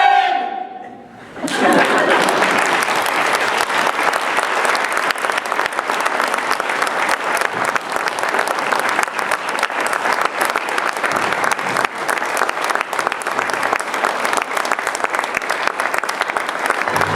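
Large audience applauding: a brief line of speech right at the start, then clapping swells in about a second and a half in and carries on steadily and loudly.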